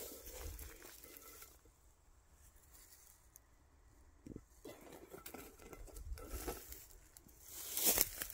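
Dry brush and grass rustling and crunching as it is pushed through. Near the end a louder, longer rustle comes as a plastic ball is pressed into dry, dead stems.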